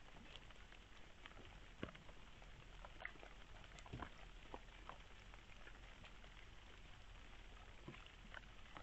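Red fox foraging nose-down on the ground, heard as faint irregular clicks and crackles over a low hiss, with a couple of sharper clicks about two and four seconds in.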